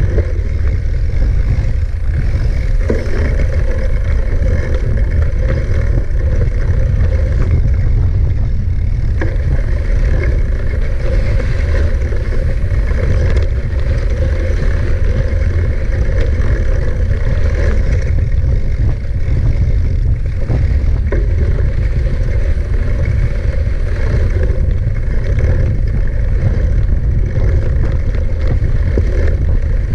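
Mountain bike rolling over rough ground, its parts rattling and clicking irregularly, with steady low wind rumble on the microphone.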